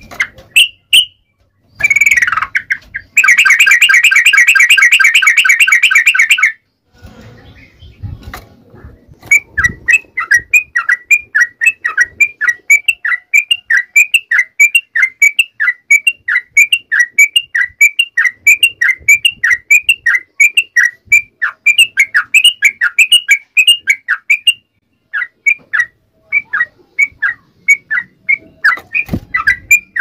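Yellow-vented bulbul (trucukan) singing: a loud, rapid rattle lasting about three seconds, then a long run of short, evenly repeated chirps, three to four a second, broken by a brief pause near the end.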